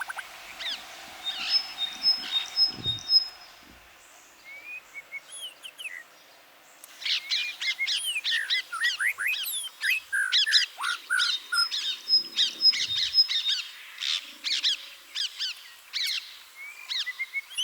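Wild birds chirping and singing, several calls overlapping, with a repeated pair of short high whistles. The chirping dies down for a few seconds about a quarter of the way in, then returns busier and keeps on.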